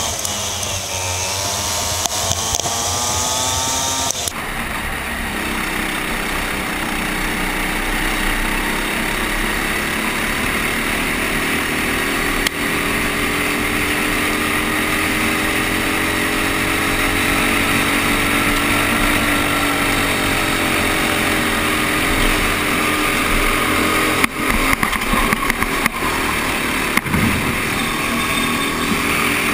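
Racing kart's small single-cylinder engine at race pace, heard from on board, its pitch dipping and rising with the throttle through the corners. The sound changes abruptly about four seconds in, and a few sharp knocks come near the end.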